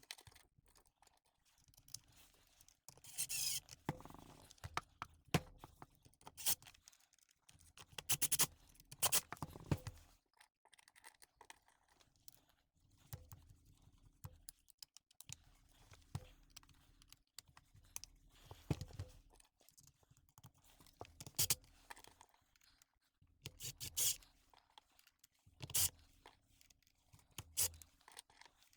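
Irregular clicks, taps and short scrapes of small parts and plastic housing pieces being handled and fitted together by hand as a Milwaukee impact wrench is reassembled.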